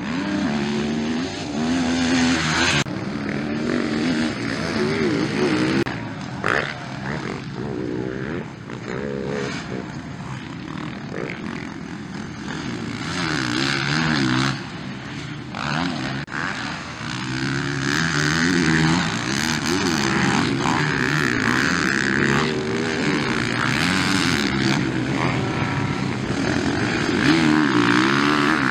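Motocross bikes' engines revving hard and dropping off again and again as riders jump and corner, with several abrupt jumps in the sound where shots change.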